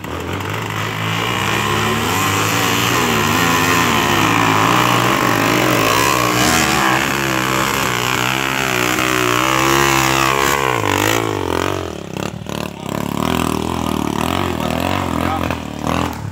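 Trail motorcycle (dirt bike) engine revving hard and unevenly as it climbs a rutted dirt track, its pitch rising and falling with the throttle. About eleven seconds in it drops back to a lower, quieter run, with a few sharp knocks.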